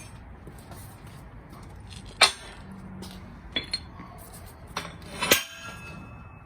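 Several sharp metal clinks and knocks from steel parts being struck or handled. The loudest comes about two seconds in, a quick pair follows about a second and a half later, and another strong clink comes near the end and is left ringing.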